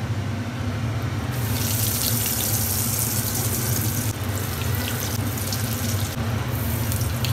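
Breadcrumb-coated potato chops (aloo chop) frying in hot oil in a wok: a steady sizzle that grows suddenly louder about a second in, over a low steady hum.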